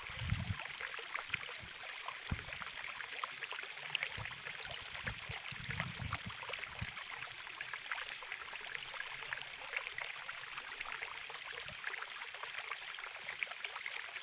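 Steady hiss of running water, like a small stream, with a few short low thumps.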